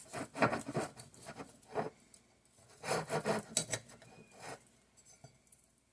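A knife sawing through a toasted grilled cheese sandwich, crisp rasping strokes of the blade through the crust, in two runs of strokes that die away near the end.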